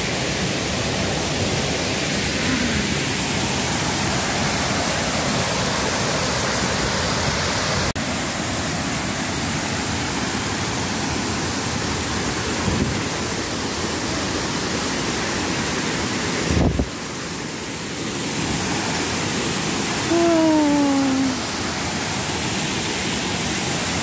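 Steady rush of a waterfall and river rapids, a dense even roar that changes abruptly in level twice. A short falling call sounds near the end.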